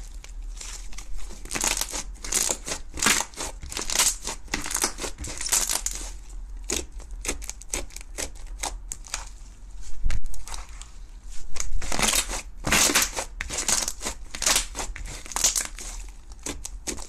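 Thick orange slime being stretched, folded and pressed by hand, giving bursts of sticky crackling and small pops. The crackling thins out for a few seconds in the middle, with one louder thump about ten seconds in.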